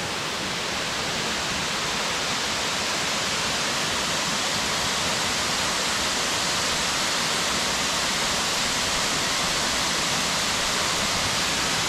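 Ellinjaa Falls' waterfall: a steady, even rush of falling water.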